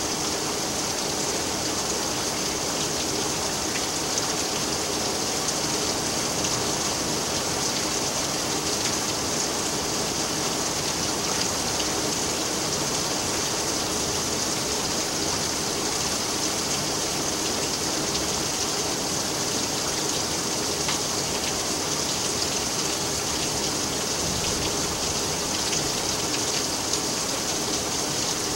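Steady heavy rain falling in a severe storm, an unbroken hiss that holds the same level throughout.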